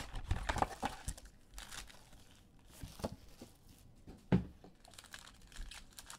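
Trading-card packaging from a Donruss Optic football mega box being torn open and crinkled by hand, in irregular crackles, with one sharper knock about four seconds in.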